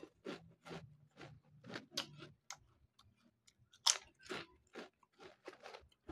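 Mouth-close chewing of seaweed-flavoured Lay's potato chips, a crisp crunch about three or four times a second. The crunching eases off briefly midway, then resumes with its loudest crunch about four seconds in.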